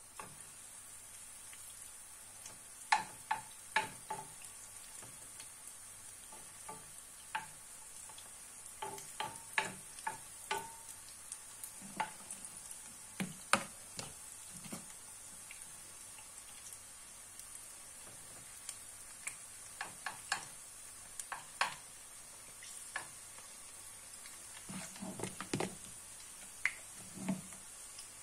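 Onion patties frying in hot oil in a pan, a steady sizzle. Over it come scattered short taps and scrapes as spoonfuls of the onion mixture are scooped from a plastic bowl and laid into the pan.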